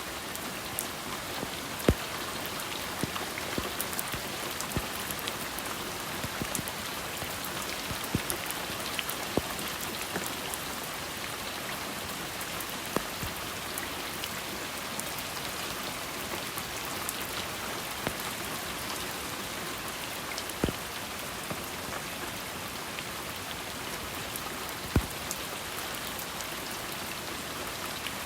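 Steady rain falling, an even hiss with scattered louder drips ticking on a surface, a few sharper drops standing out now and then.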